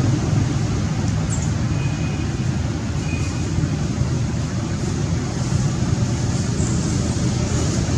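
Steady low rumbling background noise, like road traffic or wind on the microphone, with two brief faint high tones about two and three seconds in.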